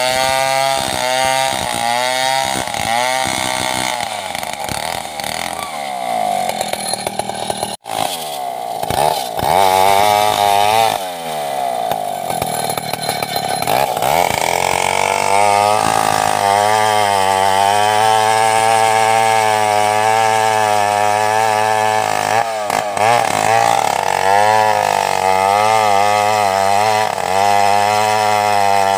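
Two-stroke chainsaw cutting through a coconut palm trunk, its engine pitch dipping and rising as it revs and loads in the cut during the first half, then holding steady at high revs through a long cut. The sound breaks off for an instant about eight seconds in.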